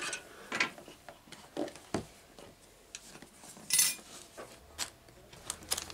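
Graphics card packaging being opened by hand: scattered light taps and knocks of box and plastic, with a short rustle of packing material about four seconds in.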